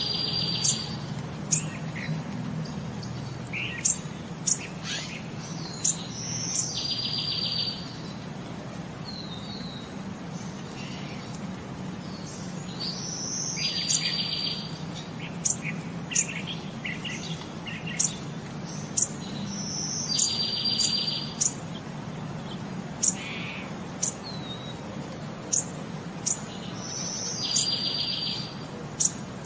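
Birdsong that repeats as a loop: the same short phrase, a high whistle followed by a buzzy trill, comes back about every seven seconds, with short sharp chirps between, over a low steady hum.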